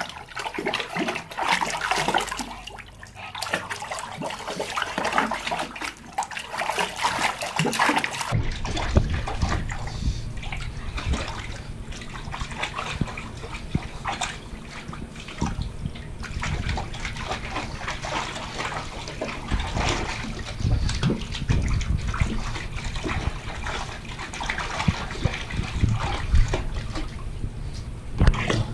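Pugs wading in a shallow paddling pool, their paws and snouts splashing and sloshing the water in an irregular run of splashes. About eight seconds in the sound changes, with a low rumble underneath the splashing.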